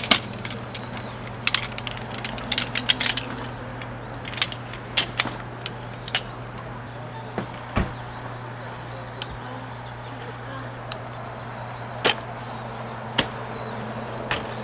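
Scattered light clicks and knocks at an uneven pace, as of camping gear being handled during setup, over a steady chirring of insects.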